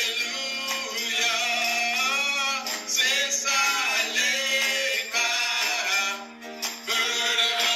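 Men singing a gospel praise and worship song into microphones, over a steady held accompanying note, with a short break in the singing about six seconds in.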